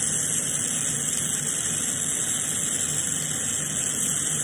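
Steady hiss of a glassworking bench torch and an oxy-fuel hand torch burning while heating borosilicate glass, with a faint low hum underneath.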